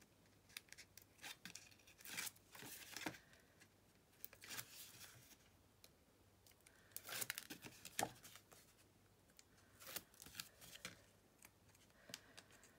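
Card stock and ribbon being handled: faint scattered rustles, ticks and short scraping sounds, a few louder ones about seven to eight seconds in.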